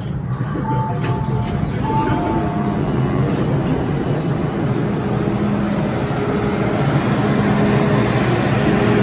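MTR Island Line M-Train electric train moving at the platform: a steady rumbling hum from the motors and wheels that slowly grows louder.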